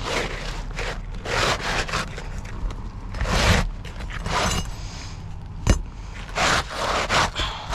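Asphalt roof shingle being slid into place under the overlapping shingles, scraping in a series of short rasping strokes, with one sharp knock about two-thirds of the way through.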